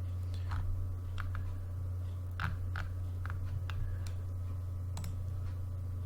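About eight light, irregular computer keyboard and mouse clicks over a steady low electrical hum.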